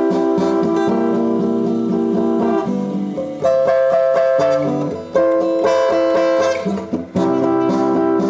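Background music: an acoustic guitar being strummed, in an instrumental passage between sung lines, with chords changing every second or two.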